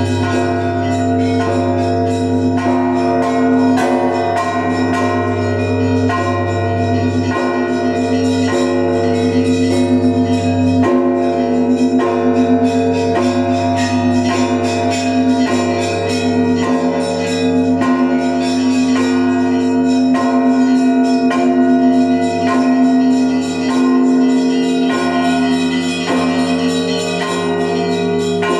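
Russian Orthodox church bells of the Trinity-Sergius Lavra belfry ringing together. Quick strikes of small bells run over sustained ringing of deeper bells, with a low bell note sounding again every few seconds.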